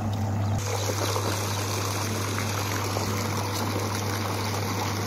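A pool fountain's water jet pouring and splashing steadily into the swimming pool, over a steady low hum. About half a second in, the splashing becomes brighter and fuller.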